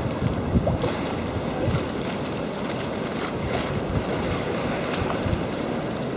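Steady outdoor rush of wind on the microphone, with occasional low buffets.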